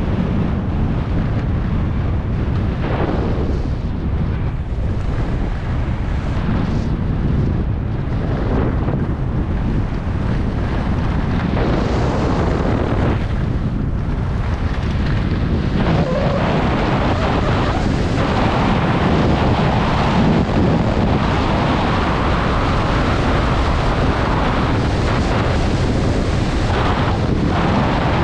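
Wind buffeting the microphone of a skier going fast downhill, mixed with the hiss and scrape of skis on firm, track-marked snow. The scraping grows louder about halfway through.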